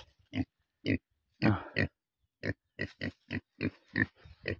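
Domestic pigs grunting: a run of short grunts, spaced out at first and then coming about three a second in the second half.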